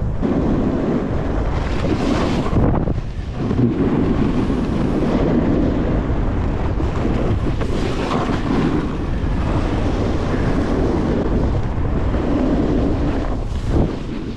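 Wind rushing over the microphone while riding fast downhill on a snowboard, mixed with the board's base sliding and turning through soft snow. The rush drops briefly about three seconds in and again just before the end.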